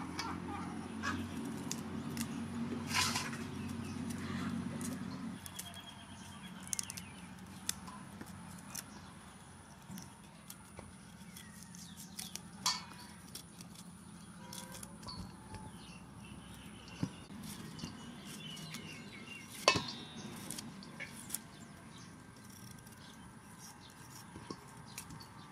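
A kitchen knife cutting cauliflower florets from the stem, with scattered sharp clicks and snaps as the stems are cut and pieces drop into a steel bowl. Faint bird chirps in the background, and a low drone that stops about five seconds in.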